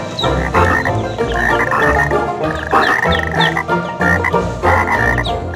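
Frog croaking, repeated in quick succession, dubbed in as a sound effect for a floating rubber toy frog.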